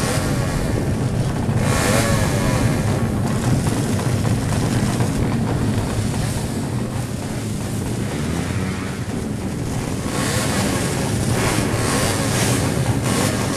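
Drag-racing motorcycle engines running at the strip, mixed with wind buffeting the microphone; the sound swells louder about two seconds in and again near the end.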